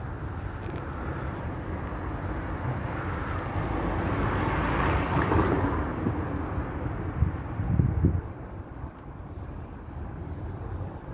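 A vehicle passing in the street, growing louder to a peak about halfway through and then fading, with a few low thumps near the end of its pass.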